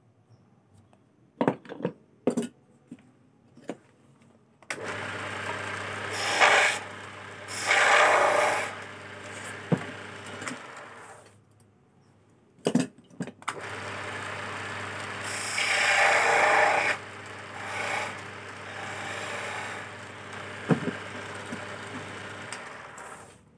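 Homemade electric wood lathe turning a teak chess piece. A few clicks, then the lathe starts about five seconds in and runs with a steady low hum, with louder stretches of scraping as a tool cuts the spinning wood. It stops about halfway, clicks twice, then runs and cuts again, stopping near the end.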